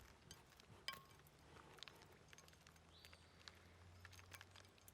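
Near silence: faint outdoor ambience with scattered small clicks and ticks, one a little louder about a second in.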